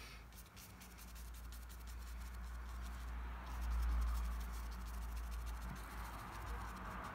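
Soft scratching and dabbing of a fan brush on watercolour paper, with a low rumble that swells about four seconds in.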